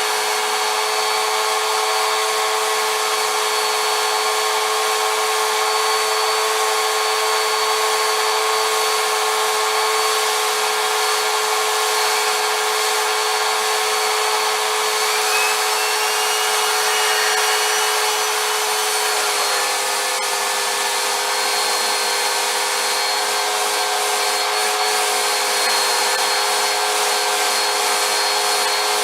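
Vacuum cleaner running steadily, a motor whine over a rush of air, the whine dropping slightly in pitch about two-thirds of the way through as the load on the motor changes.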